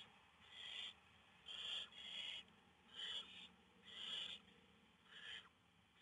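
Barn owl nestlings giving short, rasping hiss calls, about one a second. This is the snoring call that barn owl chicks use to beg for food.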